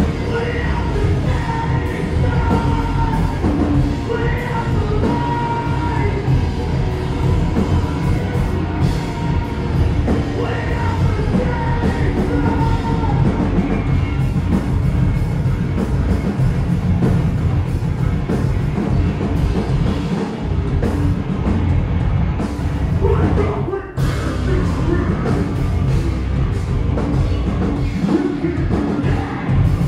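Metalcore band playing live: heavy distorted guitars, bass and pounding drums with vocals over them. The music stops abruptly for a moment about 24 seconds in, then crashes back in.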